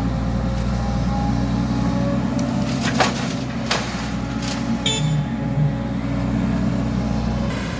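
Heavy diesel engine of an excavator loading sand into a truck, running steadily, with a few sharp knocks about three to four and a half seconds in.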